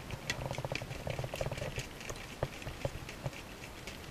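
Thick chocolate brownie batter with chopped nuts being stirred by hand in a bowl: a utensil scraping through the batter and clicking against the bowl, in rapid irregular ticks.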